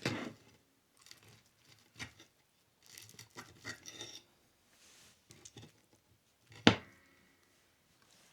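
Quiet eating sounds: chewing and soft clicks of cutlery on a plate, with one sharp clink about two-thirds of the way through that rings briefly.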